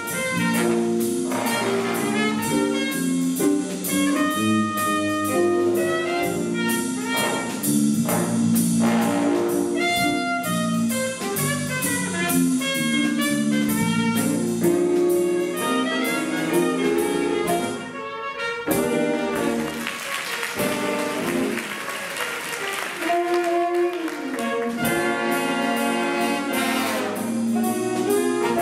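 Youth jazz big band playing: saxophones, trombones and trumpets over a drum kit keeping a steady cymbal beat. About two-thirds of the way through the band stops for a moment, then comes back in loud with full brass.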